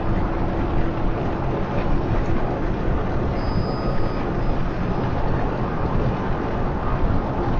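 Steady road and engine noise of a car being driven, with no change in pace.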